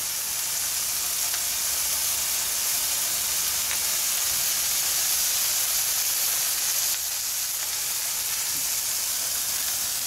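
Two ground-beef hamburger patties frying in a nonstick pan over a gas burner: a steady, high sizzle.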